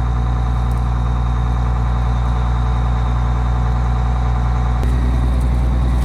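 Tractor engine running steadily at idle, a constant low drone; its note shifts slightly about five seconds in.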